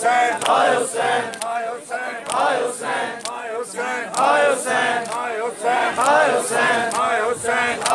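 Matam: a crowd of Shia men slapping their chests in unison, about twice a second, while chanting together.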